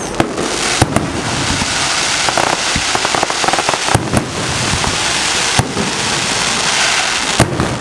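Aerial fireworks bursting: sharp bangs every second or so over a dense, continuous crackle of crackling shells.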